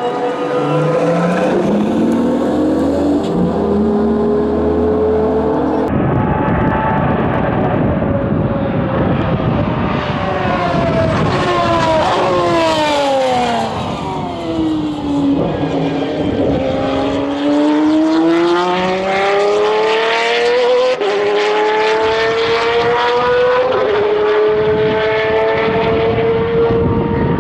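Pagani Zonda Revolucion's 6.0-litre V12 running hard on track. Its pitch climbs through the gears with sharp drops at each upshift. Through the middle the pitch falls as the car slows, then climbs again under full throttle.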